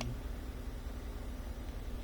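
Steady low background hum and hiss, with no tool running.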